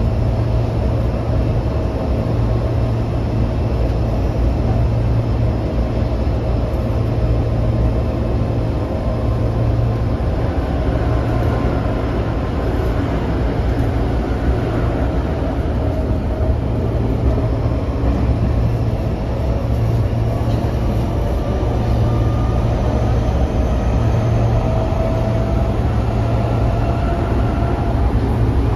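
Running noise of a Tokyo Metro 05 series electric train (set 135F), heard from inside the passenger car: a steady, loud rumble of wheels on rails and running gear, with a faint whine on top that rises slightly in pitch in the second half.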